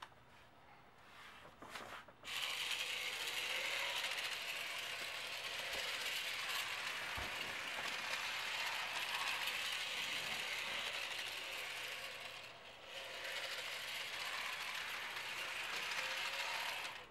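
Small motor and plastic gear train of a solar-powered HO-scale model bullet train whirring steadily as it runs around the track. It starts about two seconds in, dips briefly about three-quarters of the way through, and cuts off just at the end.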